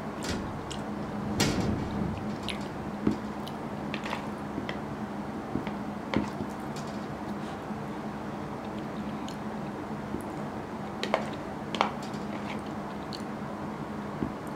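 A metal spoon clinking and scraping against a ceramic bowl in scattered clicks while scooping up curry and rice, with soft chewing in between, over a steady low hum.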